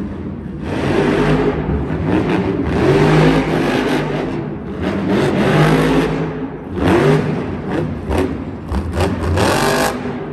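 Monster truck's supercharged V8 revving hard in repeated bursts, its note rising and falling, heard from high in the arena stands.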